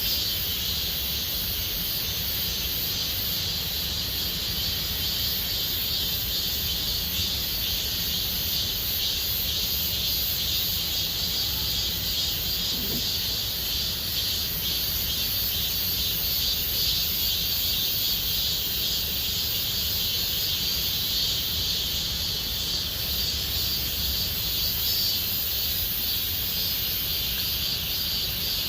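Chorus of cicadas singing continuously, a steady shrill drone that never breaks, with a faint low rumble beneath.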